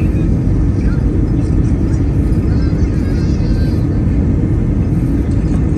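Steady low rumble of an Airbus A321 airliner heard from inside the passenger cabin: engine and airflow noise, even in level throughout.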